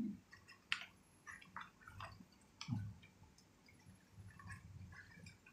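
Faint, irregular clicks and small scrapes of hands working the blade holder on a Daewoo jigsaw. The clamp is stiff and has to be forced.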